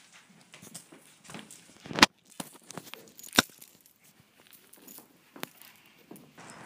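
Metal chain leash rattling and clicking as its clasp is handled and clipped onto a small dog's collar. Scattered small jingles, with two sharp clicks, the loudest about two seconds in and another about three and a half seconds in.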